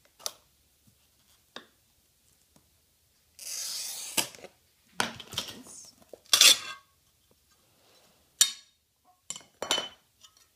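A glass cutter wheel scoring a sheet of stained glass along an angle-copier guide: a short scratchy hiss of under a second, then sharp snaps and clinks of glass as the scored glass is broken and the pieces are handled, the loudest snap about six seconds in.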